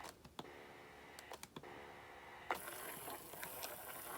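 Skeleton animatronic's small motor and gear mechanism, faintly humming and clicking while it is stuck and won't move. A hiss comes in about two and a half seconds in, with more light clicks.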